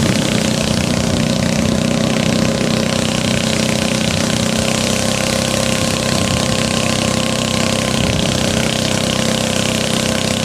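An engine running steadily at an even speed, with a dense hiss over it.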